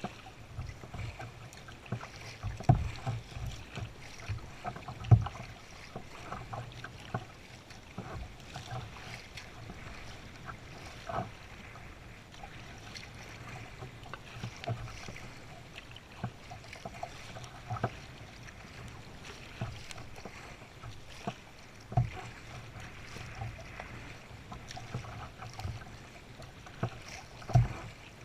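Kayak being paddled: paddle strokes in the water over a steady wash of water noise, with irregular sharp knocks, the loudest about five seconds in and near the end.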